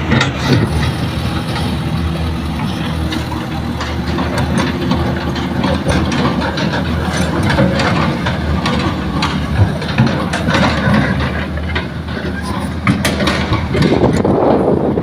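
Heavy diesel construction machinery (excavator and dump truck) running steadily, with scattered knocks and clanks.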